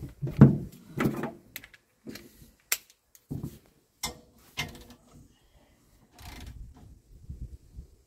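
Metal clunks, knocks and clicks of a socket and digital torque wrench being handled and fitted onto the center bolt of a steel fifth-wheel hitch, the heaviest clunk about half a second in and a sharp click just before three seconds. A low rumble of handling noise follows near the end.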